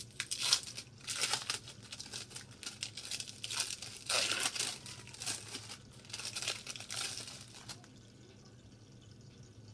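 Plastic wrapping on a pack of cheese slices crinkling and rustling as it is handled and peeled open. The crinkling comes in irregular spurts and stops about eight seconds in.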